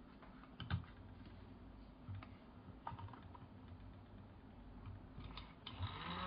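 A few scattered light clicks and taps, like plastic being handled. Near the end a small electric motor starts, rising in pitch as it spins up and then running steadily.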